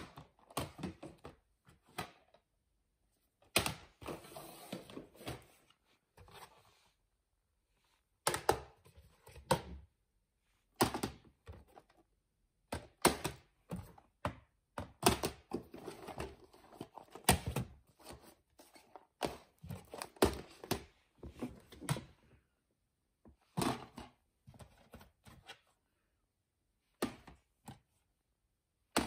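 Plastic DVD cases being handled: irregular clicks and knocks as they clack against each other and are set down on a wooden floor, with short rustling between.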